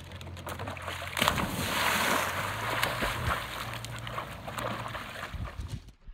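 A Belgian Malinois leaping off a dock and hitting the lake water with a big splash about a second in, followed by the wash and churning of water as the dog swims out to its toy.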